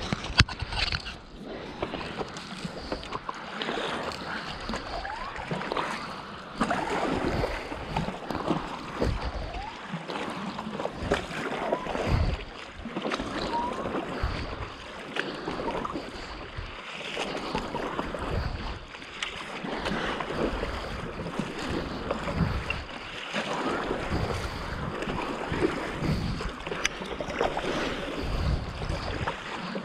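Choppy water splashing and sloshing against a stand-up paddleboard, in irregular surges, with gusts of wind rumbling on the microphone.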